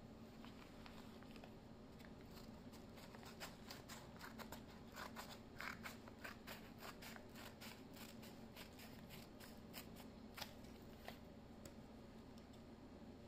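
Faint, irregular clicks and crinkles of hands unpacking and handling a small item, busiest in the middle with one sharper click near the end.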